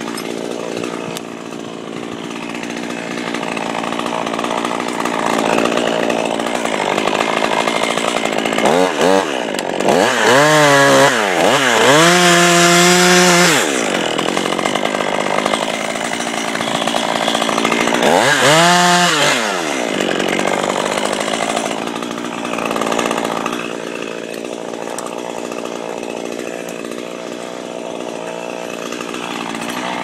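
Chainsaw running at idle, revved up about a third of the way in and held at high speed for a couple of seconds before dropping back. It is revved up and down briefly once more a little past halfway.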